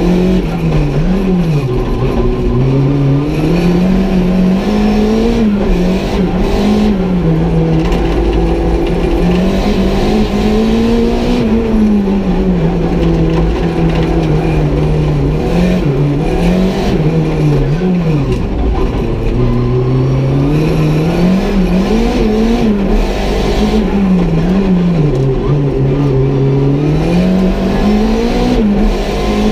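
Renault 5 GT Turbo race car's 1.4-litre turbocharged four-cylinder engine, tuned to about 300 hp, heard from inside the cockpit while being driven hard around a circuit. The engine pitch repeatedly rises and drops as it revs up and comes off the throttle.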